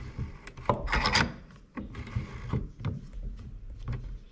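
Steel handle and screw of a bench vise rigged as an air-gun spring compressor being turned by hand: uneven scraping, rubbing and small knocks of metal on metal and wood, with a louder scraping burst about a second in.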